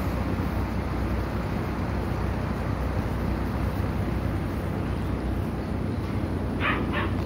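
Steady low rumble throughout. Near the end come three short, high-pitched yelps from Anatolian Shepherd puppies.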